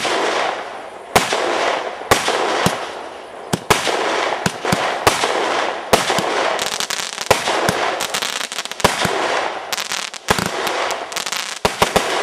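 Fireworks going off: a continuous crackling hiss with many sharp bangs at irregular intervals.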